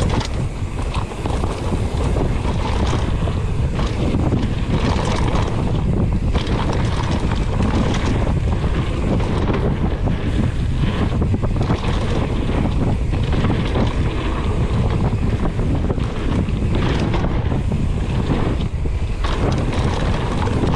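Wind buffeting the microphone during a mountain-bike descent, with the steady rumble of the ride and frequent short knocks and rattles from the bike on the rough trail.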